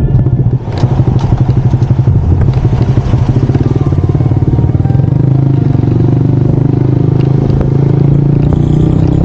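Honda Monkey 125's single-cylinder four-stroke engine running at low speed. After a brief dip in loudness just under a second in, it goes with a pulsing beat that settles into a steadier drone from about four seconds in.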